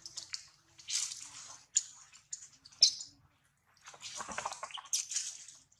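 Irregular rustling and scuffing of a macaque shifting and moving across rock and leaves with a baby clinging to her, in short bursts with a sharp one near three seconds and a longer spell of scuffling from about four seconds as she starts to walk.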